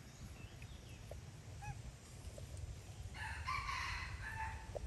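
A rooster crowing once, about three seconds in, a single call of roughly a second and a half.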